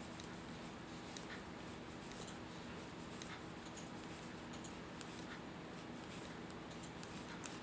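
Wooden double-pointed knitting needles clicking faintly and irregularly as stitches are knit in the round, over a steady low hum.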